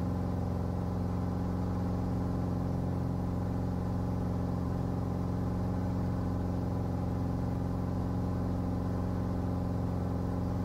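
Cirrus SR20 G6's four-cylinder Lycoming IO-390 engine and propeller droning steadily at climb power just after takeoff, heard inside the cockpit.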